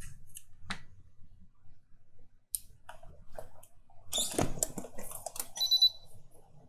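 Clicks and clatter of a laptop's top case and keyboard ribbon connector being handled, louder about four seconds in as the case is lifted and turned over. A short, high electronic beep follows near the end.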